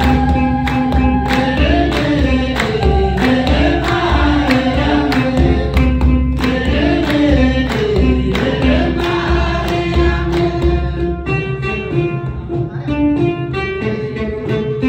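Eritrean Orthodox Tewahdo hymn (mezmur): a choir singing in unison over a steady beat on a kebero drum, with hand clapping. For about the last third the singing gives way to an instrumental melody with a plucked-string sound.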